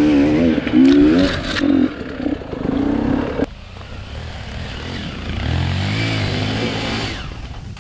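Dirt-bike engine revving up and down over rough ground, the throttle cut sharply about three and a half seconds in, then the engine revving up again near the end.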